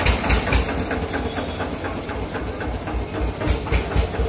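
Rapid metallic clicking and knocking as a bicycle's rear wheel lock is worked on by hand, over a continuous low rumble.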